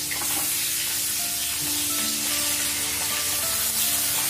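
Pieces of katla fish sizzling steadily as they shallow-fry in hot mustard oil in a steel kadhai, with a metal spatula stirring and turning them in the pan.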